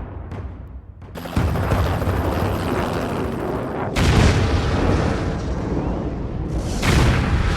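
Explosion sound effects: a series of heavy booms, each hitting suddenly and rumbling on, with the loudest about four seconds in and another near the end.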